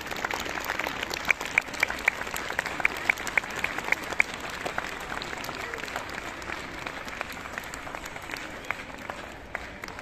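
Audience applauding, a dense patter of many hands, with one nearby person's steady claps, about four a second, standing out in the first half. The applause thins a little near the end.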